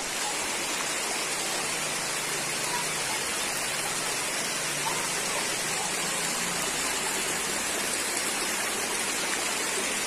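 Shallow rocky stream running over stones: a steady rush of water with no change in level.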